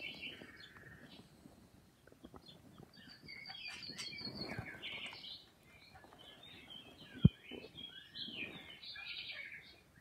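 Pet budgerigars chirping and twittering in short, scattered bursts, with brief lulls between them. A single sharp click about seven seconds in stands out as the loudest sound.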